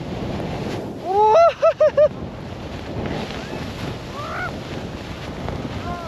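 Steady rush of wind on the microphone as a snowboard rides through deep powder, with a loud whoop about a second in: a rising call that breaks into four quick hoots. A fainter call follows near the middle.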